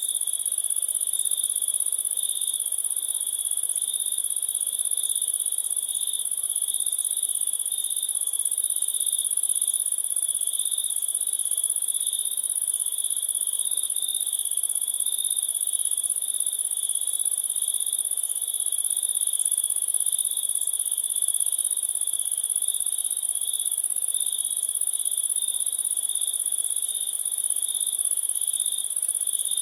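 Crickets chirping in a steady chorus, two layers of trilling, one high and one very high, going on without a break.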